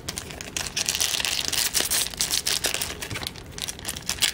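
The wrapper of a trading card pack being torn open and crinkled by hand, a dense run of sharp crackles with no letup.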